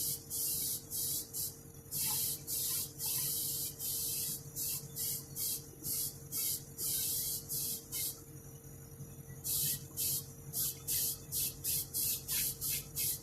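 Compressed-air paint spray gun puffing in many short bursts of hiss, a few held a little longer, while spraying a cream top coat. A steady low hum from the air compressor runs underneath.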